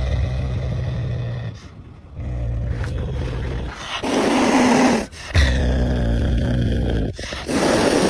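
Caracal growling low and steadily, broken by two loud hisses, one about four seconds in and one near the end.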